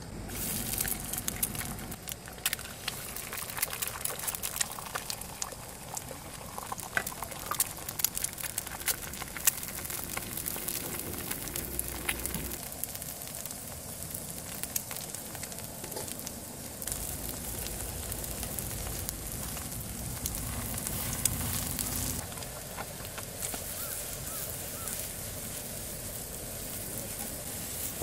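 Chopped vegetables and eggs frying in oil in a nonstick frying pan: a steady sizzle with many small crackles and pops of spitting oil.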